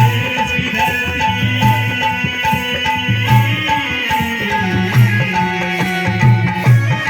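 Music with a steady, repeating drum beat and sustained melodic tones.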